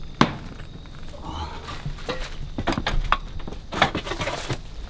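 Scattered knocks and scuffs of a person clambering in through a tight entrance, with several sharp knocks spread irregularly through it.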